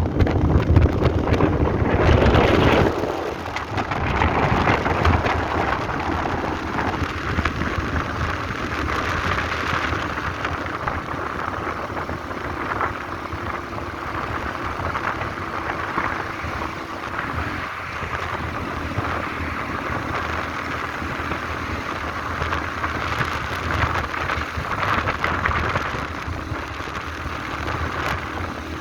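Wind blowing across the microphone: heavy rumbling buffeting for the first few seconds, then a steady rushing that rises and falls in gusts.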